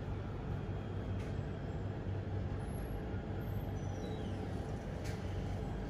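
Steady low rumble and hum of outdoor background noise, with a faint high chirp or two in the middle and a couple of soft clicks.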